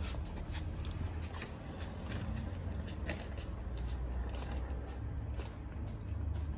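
Outdoor ambience: a steady low rumble with scattered faint clicks.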